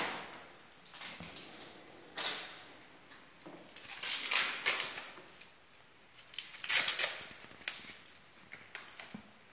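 A few short rustles and knocks of handling: plastic parts being moved and touched, with no motor running.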